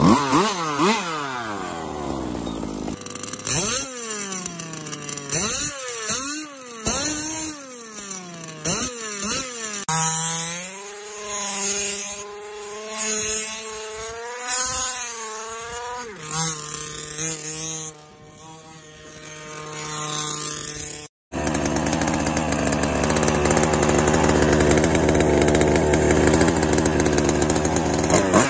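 Racing-car engine sound effect, revving up and down again and again in quick swells. It settles into a steady drone, cuts out for an instant, then gives way to a loud, steady rushing noise.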